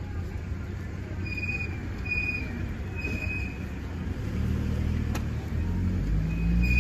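Road traffic passing close by: a steady rumble of vehicles, with an engine growing louder from about four seconds in as a vehicle approaches.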